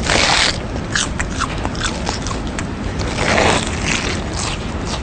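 Loud crunching on Pringles potato crisps: a big crunchy bite at the start and another a little past three seconds in, with crackly chewing in between.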